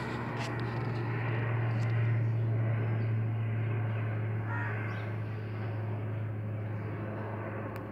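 Steady low mechanical hum over a rushing background noise, slightly louder about two seconds in.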